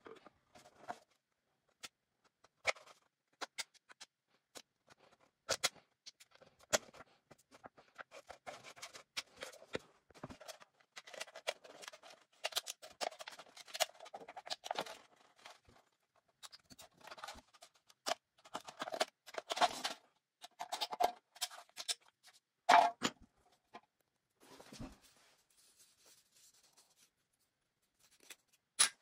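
Thin aluminium drink can being scored against a fixed knife blade, then flexed and pulled apart along the score line: irregular tinny crinkling, clicks and crackles, with one sharper crack about three quarters of the way through.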